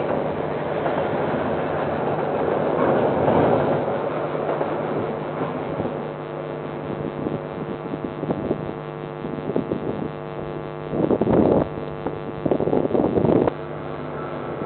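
KiwiRail diesel locomotive engine droning under a steady rushing noise as a train comes by, picked up by a security camera's microphone. Two brief louder surges of noise come near the end.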